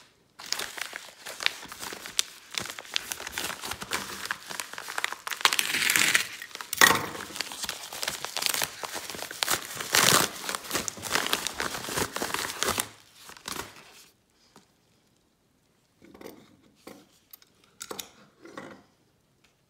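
Yellow padded paper mailer being torn and pulled open by hand: a long stretch of crinkling, crackling and tearing paper that stops about thirteen seconds in. A few short, quieter rustles follow near the end as the small cardboard box inside is handled.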